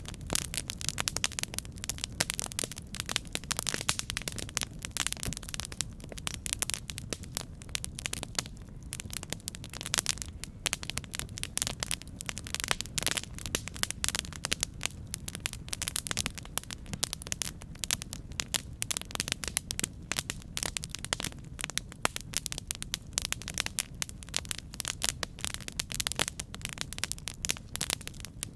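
Campfire crackling: burning wood gives off a dense, continuous run of small pops and snaps over a steady low rumble.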